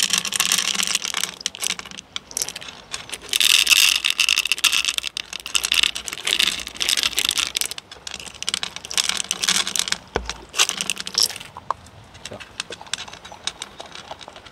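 Dry chicken-liver dog kibble poured from a can, the pellets rattling and clattering into wooden bowls in several bursts. Near the end, quieter scattered clicks as a dog eats the kibble from a bowl.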